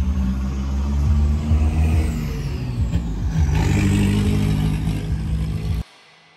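A motor vehicle engine running loudly and steadily, cutting off abruptly near the end.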